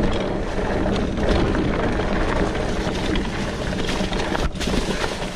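Ride noise from a fat-tire electric mountain bike on a leaf-covered dirt trail: a steady rush of wind and tyre noise, with a brief break about four and a half seconds in.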